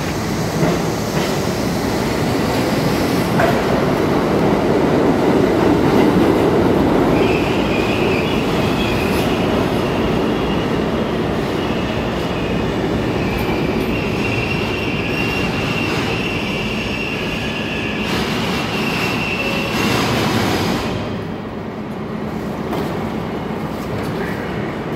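An R32 New York City subway train pulling into an underground station: steel wheels rumbling on the rails, then a high, steady squeal from about seven seconds in as it slows. The squeal and rumble die away about twenty seconds in as the train comes to a stop.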